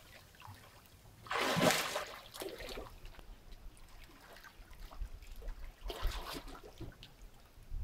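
Sea water splashing as a swimmer's arms and legs break the surface, with a louder splash about a second and a half in and another around six seconds.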